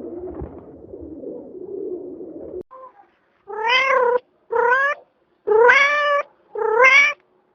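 A cat meowing four times in short, separate calls, each rising and then falling in pitch. Before the meows, a low steady sound cuts off suddenly about two and a half seconds in.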